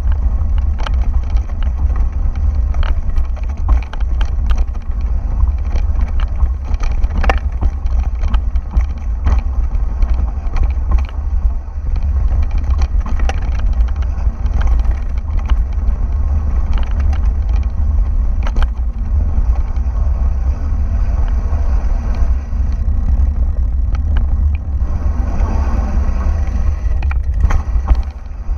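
A mountain bike rolling over a rocky dirt and gravel trail, with a steady deep wind rumble on the camera's microphone and constant irregular knocks and rattles from the bike over stones.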